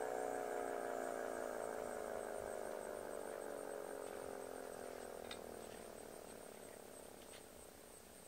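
Decot Red Arrow Model 30 outdoor warning siren winding down after its noon test blast, its pitch falling steadily as it fades away.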